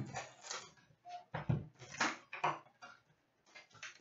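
A cardboard hockey card box being handled and opened by hand on a glass table: a run of short knocks, scrapes and rustles about twice a second, with a dull thump about a second and a half in.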